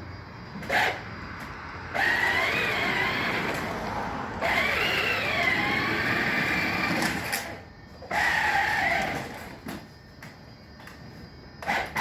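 Whine of a Power Wheels ride-on quad's electric drive motor and gearbox, running at full speed on an 18-volt battery. The pitch wavers up and down as it speeds up and slows, drops away briefly in the middle, then fades near the end.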